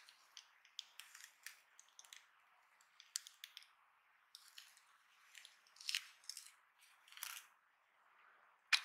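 Handling noise from a black laptop power cord being turned over in fabric-gloved hands: scattered soft rustles and small plastic clicks and taps from the cloverleaf connector and plug, with one sharp click near the end.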